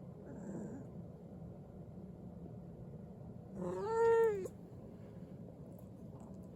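A domestic cat meowing once, a drawn-out meow of about a second that starts a little over halfway through. A faint short sound comes near the start.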